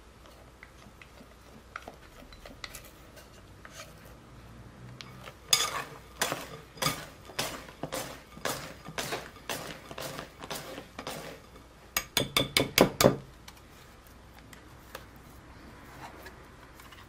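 Wire balloon whisk folding meringue into egg-yolk chiffon cake batter in a glass bowl, the wires clinking and scraping against the glass in regular strokes about two a second. Just past the middle comes a quicker run of about six louder strokes, then soft stirring.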